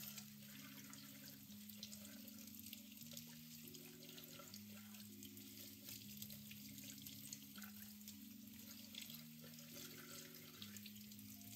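Tap water running steadily through a wire-mesh sieve of blueberries and splashing into a stainless steel sink, with small patters of drops. Soft background music of held low notes plays underneath.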